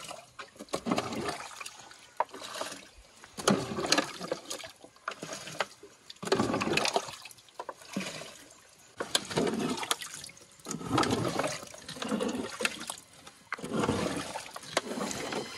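Water repeatedly scooped up with a plastic bottle and poured out, a splashing pour roughly every second.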